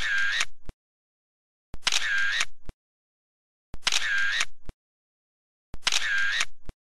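Camera shutter sound effect, played four times at two-second intervals with silence in between. Each identical shot lasts about a second and opens and closes with a sharp click.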